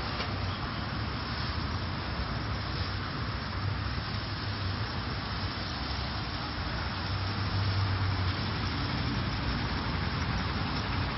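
City bus engine running with a low steady hum as the bus creeps forward into an automatic bus wash, under an even, steady hiss.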